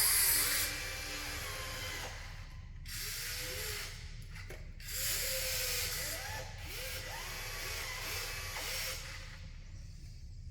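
Small electric motors of radio-controlled construction machines working, their whine rising and falling in pitch again and again over a steady hiss. The hiss is loudest in the first second.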